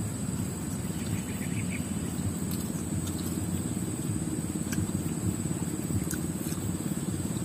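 Steady low outdoor rumble with a thin, constant high-pitched whine above it and a few faint clicks.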